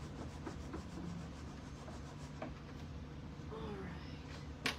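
Hand scrubbing a wooden cabinet top with a paper towel, a steady rubbing as grime is worked off the finish. A sharp click near the end.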